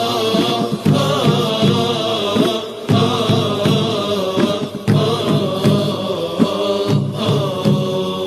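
Islamic devotional nasheed between verses: layered chanting voices, without clear words, over a regular beat.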